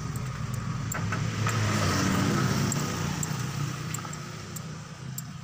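Diesel truck engine running, a steady low rumble that swells louder for a couple of seconds in the middle and then settles back.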